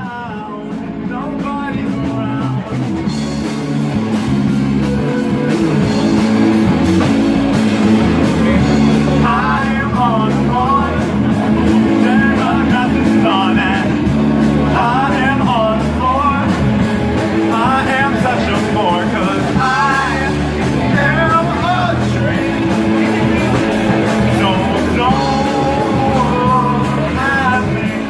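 Rock band playing with drums and guitar, swelling up over the first few seconds. A bending lead melody rides over the steady beat from about a third of the way in.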